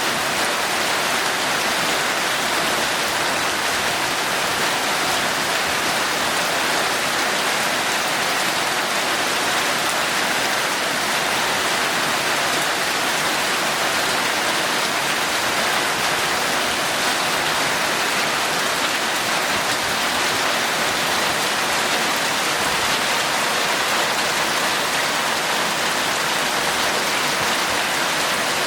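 Heavy, torrential rain falling steadily as an even hiss, with no single drops or breaks standing out.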